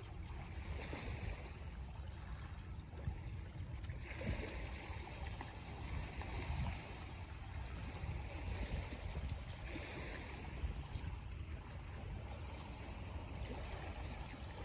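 Small lake waves lapping against the shore, each wash swelling and fading every few seconds, over a steady low rumble of wind.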